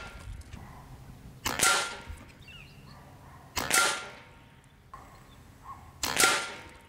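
Crosman ICON .22 PCP air rifle firing three shots about two to two and a half seconds apart, each a sharp crack with a short fading ring.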